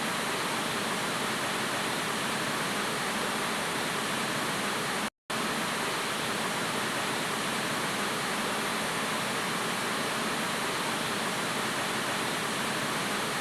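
Steady hiss of static noise, even across all pitches, with a brief cut to silence about five seconds in.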